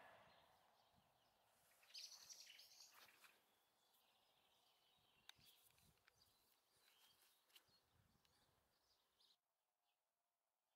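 Near silence: faint outdoor ambience with birds chirping now and then. It drops to an even quieter background about nine seconds in.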